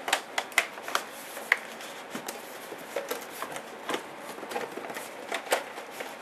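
Cardboard DVD gift-set box being handled: a string of irregular taps, clicks and scrapes as it is gripped, lifted and tilted.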